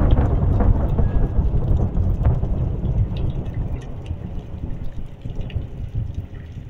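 Heavy rain falling on standing floodwater, with a deep, uneven rumbling underneath; the whole gradually grows quieter.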